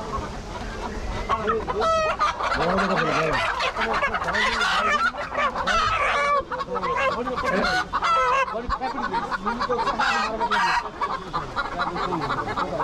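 Many chickens clucking and calling over one another, a dense, continuous chorus of overlapping squawks and clucks.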